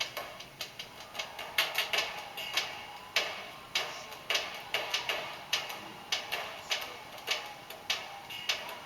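A series of sharp clicks or taps at an uneven pace, roughly one to two a second.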